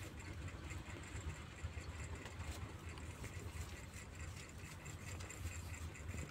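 Faint, steady low rumble.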